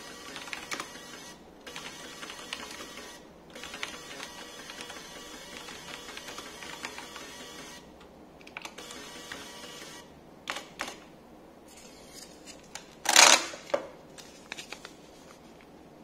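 Rapid keystrokes on a mechanical computer keyboard over the whirr of a small thermal printer's stepper motor feeding paper as each character prints, for about the first eight seconds. A few stray clicks follow, then a loud short rip about 13 seconds in as the printed strip is torn off against the printer's serrated edge.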